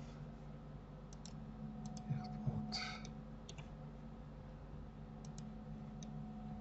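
Faint clicks of a computer mouse and keyboard, scattered singly and in pairs, over a steady low electrical hum.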